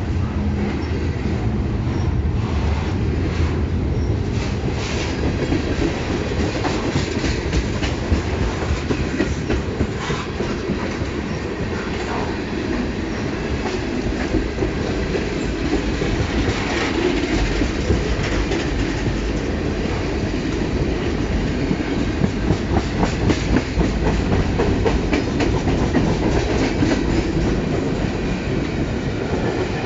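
Freight train cars rolling steadily past close by: intermodal well cars carrying containers, then tank cars. Their steel wheels rumble and click over the rail joints.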